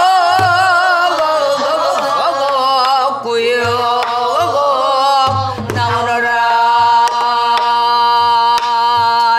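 A female pansori singer draws out a long melismatic vocal line with wide vibrato on the words "꾸역꾸역 나오너라". She steps down in pitch twice and ends on a long held note that cuts off at the end. She accompanies herself with sparse strokes on a buk barrel drum.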